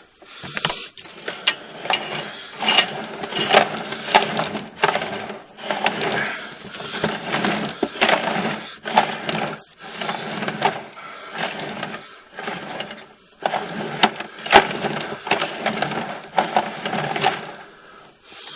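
Sewer inspection camera's push cable being fed through a cleanout into the main sewer line, with irregular rattling and knocking.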